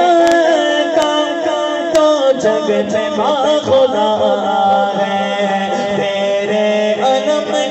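Man singing a devotional Urdu song to Abbas into a microphone, drawing out long, ornamented notes over a steady low drone.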